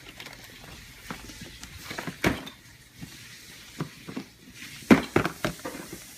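Gift packaging being handled and opened: scattered taps, knocks and rustles, with a sharper knock a little over two seconds in and another near five seconds.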